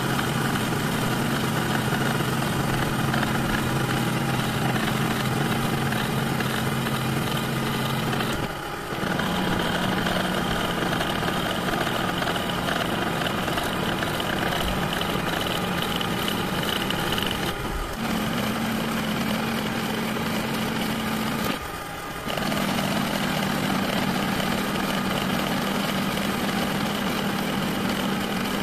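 Lathe running with a steady machine hum. The hum dips briefly about 9, 18 and 22 seconds in and settles at a different pitch after each dip.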